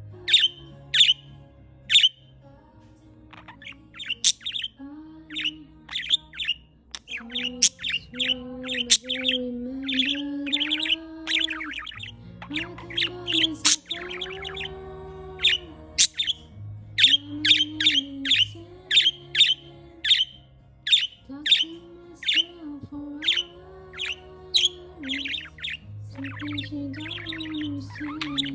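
Budgerigars chirping in rapid short calls, in quick runs throughout, over a pop song playing.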